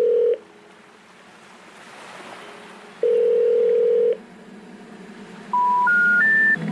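Telephone line tones: a steady low beep of about a second, heard twice about three seconds apart like a ringback tone, then three short beeps stepping up in pitch, the special information tone that signals a call cannot be completed.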